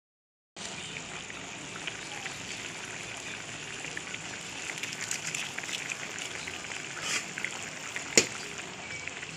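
Pork mechado stew in tomato sauce and broth sizzling and bubbling in a metal wok, a steady crackle with small pops, starting after a brief silence. A sharp clink of a spatula against the pan about eight seconds in.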